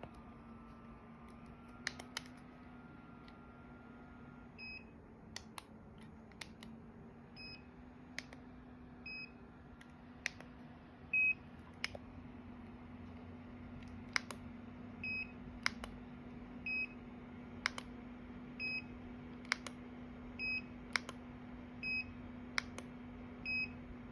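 Electronic beeper, such as a sound-effect chip, giving short high beeps roughly once a second, mixed with sharp clicks over a steady low hum.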